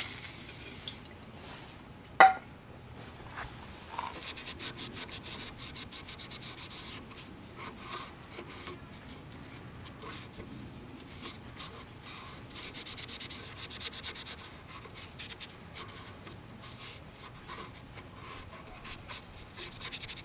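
A brief hiss of aerosol spray onto the metal carburetor plate of a small Tecumseh engine, then a single sharp click about two seconds in. A rag then rubs the dirty plate in quick back-and-forth strokes that come in bouts.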